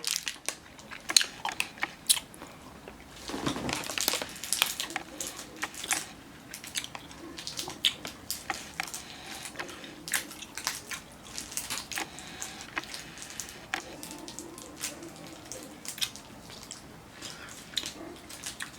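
A person chewing a soft, chewy Hi-Chew candy close to the microphone: irregular wet mouth clicks and smacks throughout, with a louder smack about three and a half seconds in.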